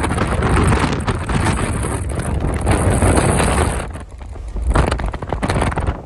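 Storm-force wind buffeting the microphone in a heavy rumbling rush, easing for a moment about four seconds in.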